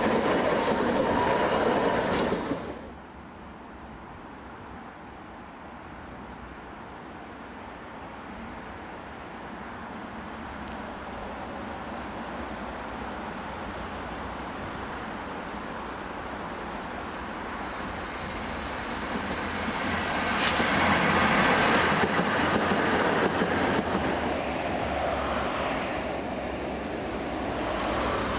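A Tatra T3 tram rumbles close past on its rails; the sound is loud for the first two seconds or so, then drops abruptly. A second Tatra T3 tram then approaches along the track, its rumble slowly growing to a peak about twenty seconds in, with a thin wheel squeal, then easing off.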